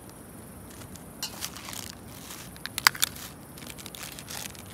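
Scattered crinkling rustles and small clicks of hand-held fireworks and their plastic wrapping being handled, with a couple of sharper clicks about three seconds in.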